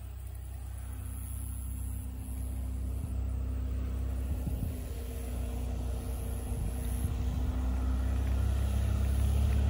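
Zenith STOL CH 701 light aircraft on a low landing approach, its UL Power UL350iS engine and propeller humming at a steady pitch and growing steadily louder as it comes in.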